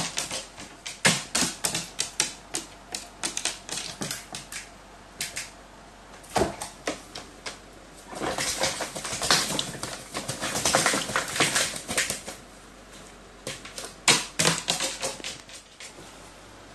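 Carrion crow bathing in a plastic bucket of water: rapid bursts of splashing and wing-flapping, with a longer run of continuous splashing about halfway through.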